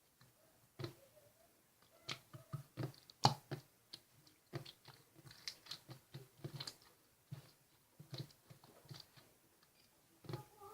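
Slime being squished and poked by hand, making irregular small sticky pops and clicks.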